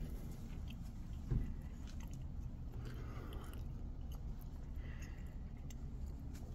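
Footsteps crunching over gravel and grass, with a single thump about a second in, over a low steady rumble.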